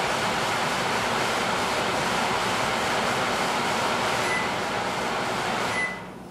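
Over-the-range microwave's exhaust fan running, a steady loud rushing. Two short keypad beeps sound about four and six seconds in, and with the second the fan shuts off and the rushing drops away.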